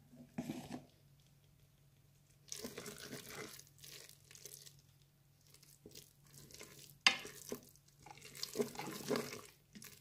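Wooden spoon stirring thick, wet risotto with butter and parmesan in the Cookeo's inner pot: irregular scraping, squelching strokes from about two and a half seconds in, with one sharper click about seven seconds in. A faint steady low hum lies underneath.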